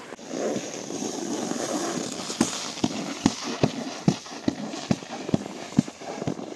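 Footsteps crunching in snow, a steady pace of about two steps a second, starting about two seconds in after a stretch of rushing noise.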